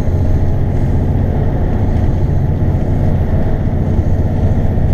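Freightliner Argosy truck's diesel engine and road noise heard inside the cab while cruising, a steady low drone.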